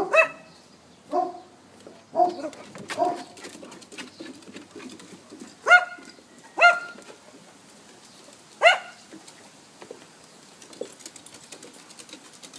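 A dog barking while chasing roosters: a few short barks in the first three seconds, then three louder, higher barks about six, seven and nine seconds in.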